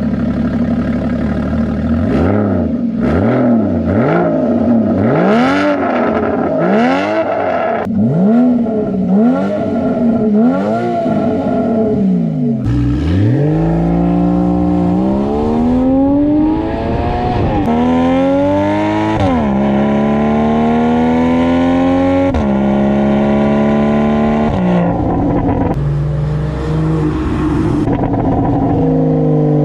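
2014 Porsche Boxster 981's 2.7-litre naturally aspirated flat-six, through an Akrapovic exhaust, revved in quick blips about once a second for the first twelve seconds. It then accelerates hard, the engine note climbing and dropping back at each of four gear upshifts of its PDK gearbox, with one more climb near the end.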